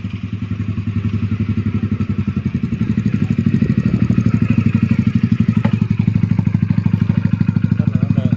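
Single-cylinder Hero Splendor motorcycle engine running with an even, rapid beat, growing louder over the first few seconds and then holding steady.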